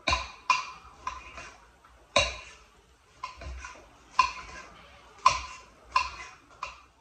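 Kitchen work at a stone counter: about ten sharp, irregular clinks and knocks, each with a short ring.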